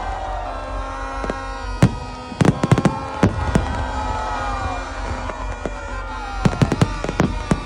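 Aerial fireworks bursting: bursts of sharp bangs and crackles in two clusters, with a lull in between, over music playing.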